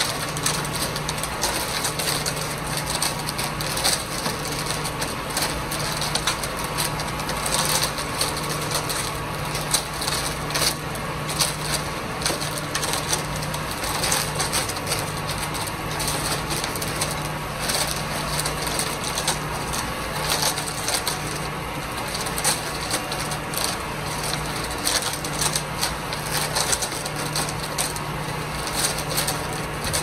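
Cemex ready-mix concrete truck's mixer drum turning, with a constant gritty crunching and clattering from the concrete churning inside, over a low hum of the drum drive that comes and goes.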